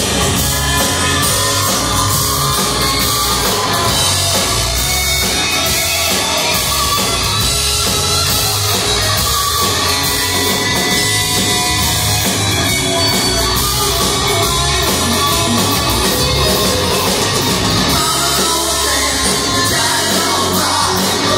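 Live heavy metal band playing loud, with distorted electric guitars over bass and drums.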